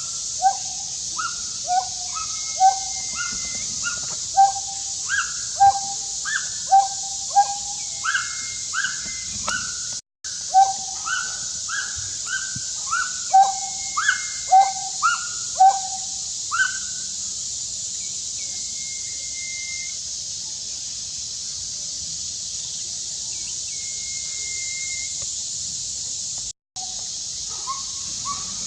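A young monkey's repeated short crying calls, each a quick falling note, about one every half-second to second for the first sixteen seconds, then stopping. A few flat, held whistles sound higher up at intervals over a steady high hiss.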